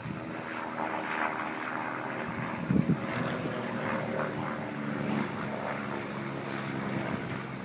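Aerobatic display aircraft flying past, a steady engine drone made of several held pitched tones. A brief thump a little under three seconds in.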